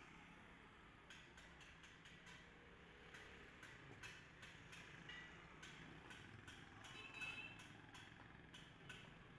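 Near silence: faint roadside ambience with a low hum of distant traffic and a few soft ticks scattered through.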